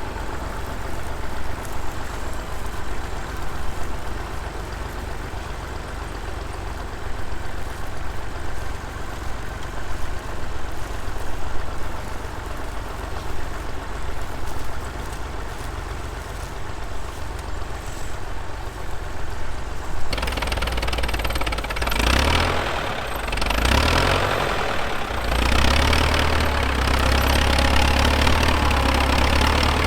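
Engine running steadily. About twenty seconds in it becomes louder, with the revs rising and falling a few times before it settles into a steady, heavier run.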